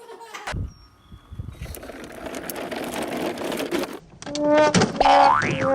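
A small motor whirring, growing louder, then near the end a run of pitched tones with a quick rising glide.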